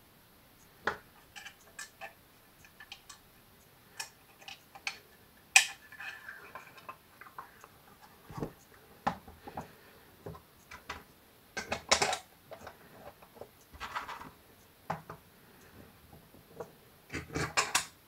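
Hard plastic casing of a Cerberus Guinard SIR-24-FC fire siren being handled and fitted onto its base: scattered clicks and knocks of plastic parts. There is a sharp click about five and a half seconds in, a flurry of clatter around twelve seconds, and a run of knocks near the end.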